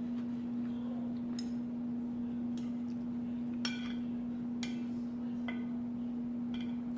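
Utensil clinking against a dish about six times, roughly once a second, each click ringing briefly, over a steady low hum.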